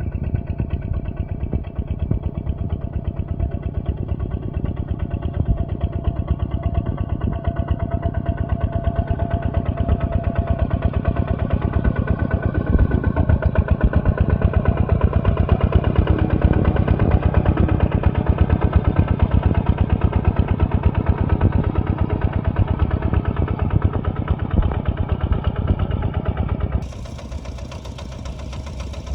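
Diesel engine of heavy machinery running with a rapid, even chugging that grows louder about halfway through, then drops abruptly to a quieter engine sound near the end.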